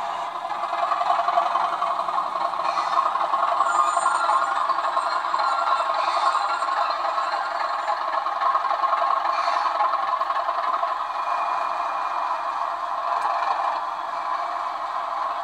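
OO gauge model diesel locomotive hauling tank wagons along the track: a steady running noise of the motor and the wheels rattling over the rails.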